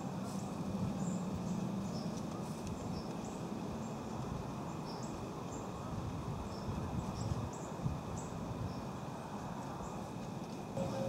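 Outdoor ambience: scattered short, high bird chirps over a steady background hiss.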